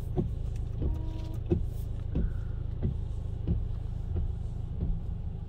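Cab of a Ford Ranger XLT with its 2.2-litre diesel engine idling as a steady low hum, while the windscreen wipers sweep with a soft stroke about every two-thirds of a second.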